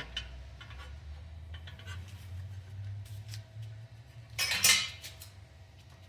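Metal parts and tools clinking and clattering as they are handled during an engine teardown: scattered light clinks, with one louder metallic clatter about four and a half seconds in, over a steady low hum.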